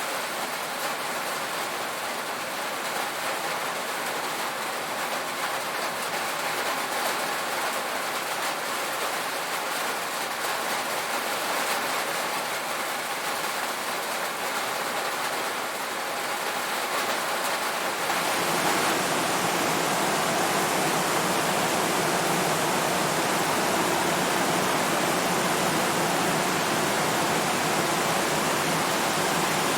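Steady rain on a tin roof, an even hiss of drops. About 18 seconds in it turns abruptly louder and fuller.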